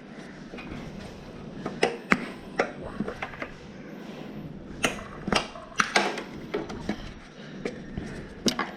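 Scattered clicks and light knocks of hands and tools working on a motorcycle's fuel-injection hose and wiring connectors, in small clusters with pauses between.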